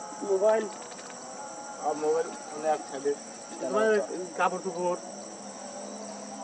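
Steady high-pitched chirring of crickets, with a person's voice talking in short phrases over it several times.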